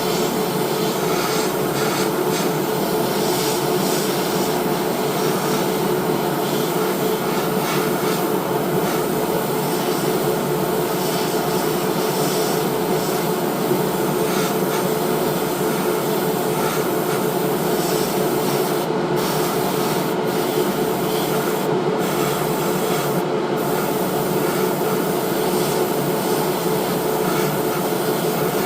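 Hobby spray booth extraction fan running steadily, with the hiss of an airbrush spraying paint. The high hiss cuts out briefly about four times in the second half as the airbrush trigger is released.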